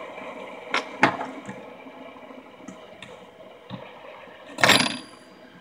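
Fidget spinners being set down and stacked on a wooden table: two sharp clicks about a second in, then a louder clatter with a short ring about four and a half seconds in as the spinners knock together.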